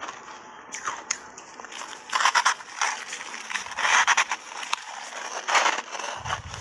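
Close-miked bites of a hard block of ice coated in matcha tea powder, with crunching and crackling. Crunch bursts come about two seconds in, around four seconds and again near five and a half seconds, with lighter handling sounds between them.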